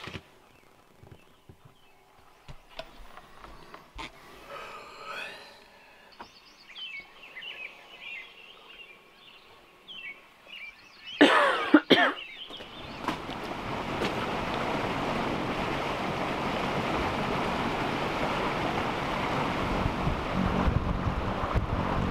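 Faint clicks and rustles, then a loud cough-like vocal burst about eleven seconds in. After it comes the steady rush of wind and water with a low engine drone from a sailboat motoring along, growing louder over the last several seconds.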